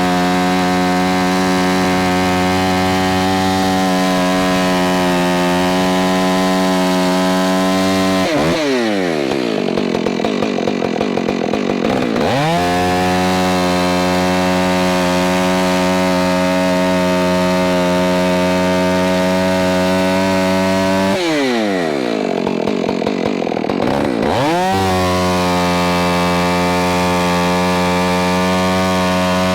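Stihl MS461 chainsaw (about 77 cc) running at full throttle while cutting ash logs. Twice, about a third of the way in and again about two-thirds through, it drops back toward idle for a few seconds, then revs straight back up.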